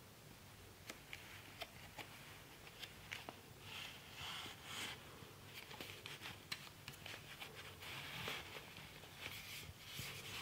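Hands handling and turning over a cardboard box with a plastic window: faint clicks, taps and rustling scrapes, the rustling starting about four seconds in.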